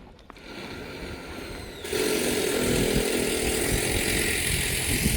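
A small engine running loud, starting abruptly about two seconds in and cutting off suddenly at the end, with a fainter hiss before it.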